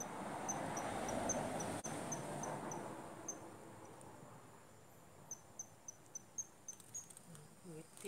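Short, high-pitched chirps at a steady pitch, repeating about three to four times a second in two runs with a pause between, over a faint rushing noise in the first few seconds.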